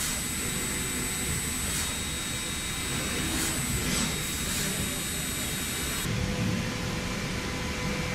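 CNC mill-turn machine running steadily as it cuts gear teeth on a steel crankshaft, a constant machine noise with a faint high whine and a few short hisses. The sound changes abruptly about six seconds in.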